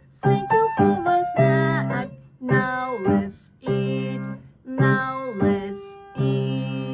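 Piano playing a simple children's song, a run of short notes and chords with the last chord held and dying away near the end.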